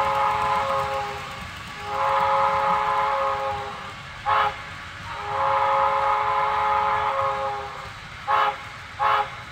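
Sound-decoder steam whistle of an HO-scale Proto 2000 0-6-0 model locomotive, played through its small onboard speaker. It gives a series of blasts on a chord of several notes: a long blast already sounding ends, then come a second long one, a short toot, another long blast, and two quick short toots near the end.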